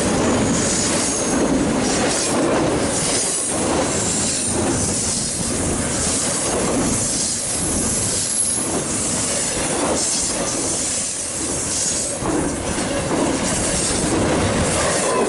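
Union Pacific intermodal freight train rolling past close by: a steady, loud clatter of wheels over the rail joints, with intermittent high wheel squeal.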